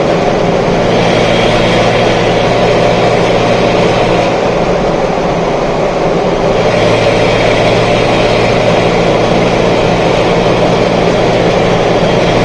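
Datsun 240Z's 2.4-litre straight-six engine running at a steady cruise, heard from inside the cabin with road noise. The engine note stays even, with a slight change about seven seconds in.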